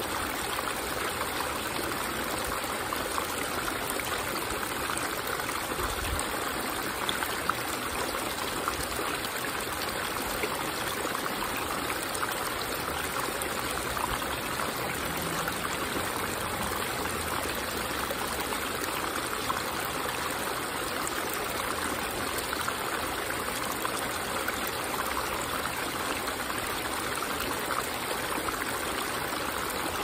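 Small backyard rock waterfall: water trickling and splashing steadily over stacked stones into a shallow pebble bed.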